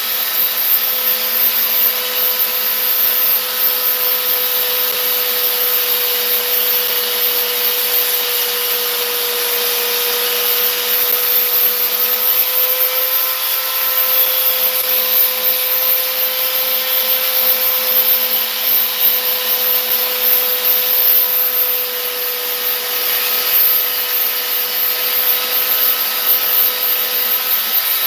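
Power sander running continuously, sanding down body filler on a fiberglass door: a steady motor whine over the hiss of the abrasive on the surface, its pitch sagging slightly and recovering as pressure on the panel changes.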